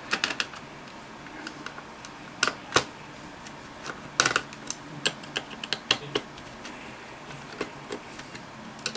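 Small screwdriver undoing the little screws on an HP TC1100 tablet's metal heat shield: scattered, irregular light clicks and taps of metal on metal, a few sharper than the rest.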